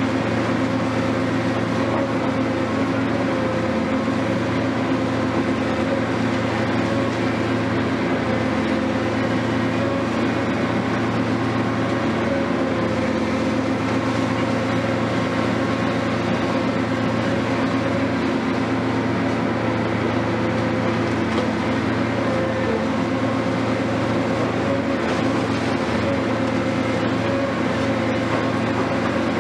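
Hitachi 470 long-reach demolition excavator's diesel engine running with a steady, unchanging drone.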